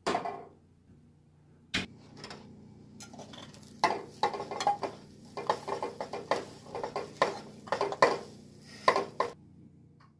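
Cooked rice being tipped and scraped out of a metal saucepan into a ceramic bowl: a quick run of clinks, knocks and scrapes of metal on metal and ceramic. It is preceded by a clatter at the start and a single sharp click a couple of seconds in.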